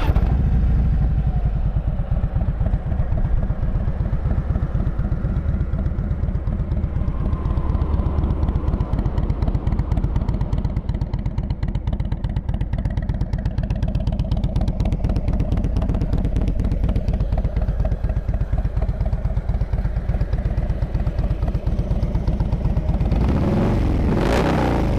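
2016 Harley-Davidson Dyna Switchback's Twin Cam 103 V-twin idling steadily with an even, pulsing beat through its Screaming Eagle Nightstick 2-into-1 exhaust. It is running smoothly with no problems.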